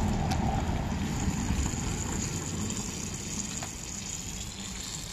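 Hot oil sizzling steadily as battered vegetables deep-fry, over a low rumble that eases a little toward the end.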